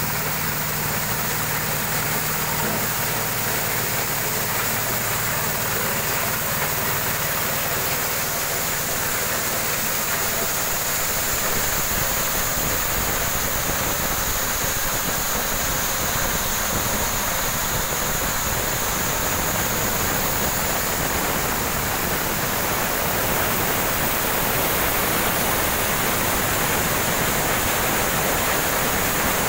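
Engine-driven corn sheller running continuously: a small stationary engine's steady hum under the dense rushing rattle of cobs being stripped of their kernels. The engine hum is clearest in the first ten seconds or so, after which the threshing noise dominates.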